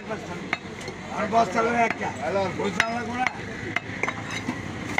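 Butcher's cleaver chopping beef on a wooden log chopping block: about half a dozen sharp, irregular chops, with people's voices chattering in the background.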